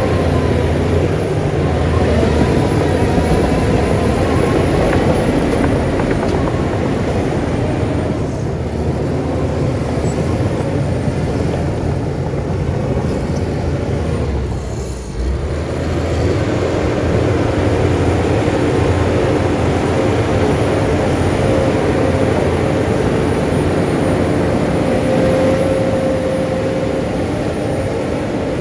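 Heavy diesel earthmoving machinery running continuously, with a deep engine rumble and a steady whine, easing briefly about halfway through.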